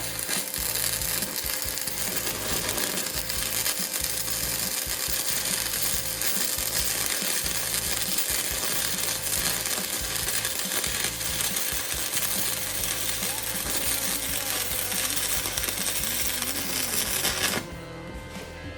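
Electric arc welding: a loud, steady crackle and sizzle of the arc that cuts off sharply near the end, with background music underneath.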